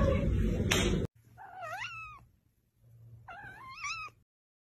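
A cat meowing twice: two short, wavering calls a little over a second apart, after a second of hiss and rustle that cuts off abruptly.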